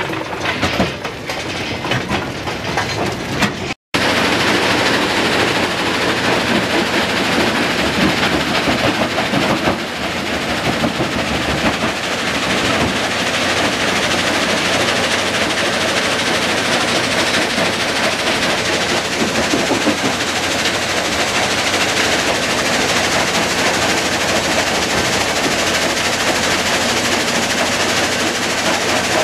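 Kue-Ken rock crushing plant running: irregular clattering knocks of rock in the jaw crusher for the first few seconds, then a steady, dense rattle of crushed rock running over conveyors and a vibrating screen.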